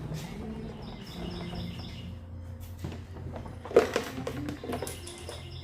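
Bird chirping in a quick run of short high notes, with one sharp knock about four seconds in, over faint steady background music.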